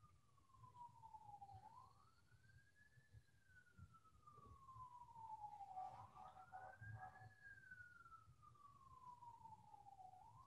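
Faint wailing siren of an emergency vehicle, its pitch climbing quickly and then sliding slowly down, repeating about every four seconds.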